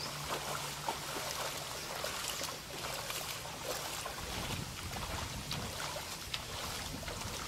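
Shallow tsunami floodwater sloshing and splashing around wading legs and feet, a steady watery hiss with many small splashes.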